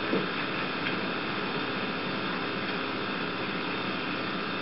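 Steady hiss with a faint hum: the background noise of an old home camcorder tape recording, with nothing else standing out.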